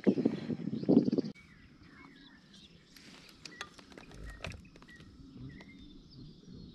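A loud animal call in quick repeated pulses that cuts off abruptly about a second in, followed by faint bird chirps over quiet open-country ambience.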